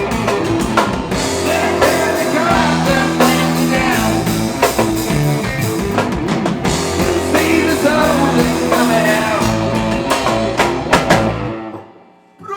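Live rock band with electric guitars, bass and drum kit playing loudly. Near the end it closes with a few accented hits and stops abruptly, ending the song.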